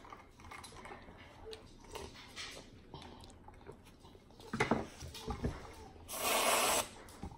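Aerosol can of whipped cream spraying once near the end, a hissing spurt lasting a little under a second. A few faint knocks come shortly before it.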